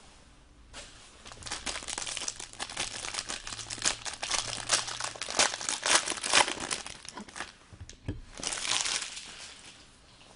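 Crinkling and tearing of a plastic card-pack wrapper as a pack of hockey cards is opened by hand, a dense run of crackles with a final burst near the end.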